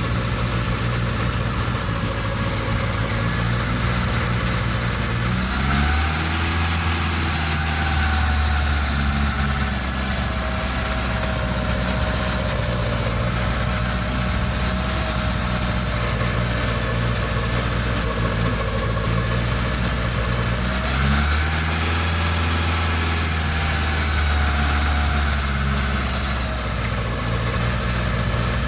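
1987 Honda CRX's carbureted four-cylinder engine (Keihin three-barrel carburetor) running at idle, its note shifting a couple of times, about five seconds in and again about twenty seconds in. It runs very lean and struggles to idle because of a vacuum leak at the carburetor base plate.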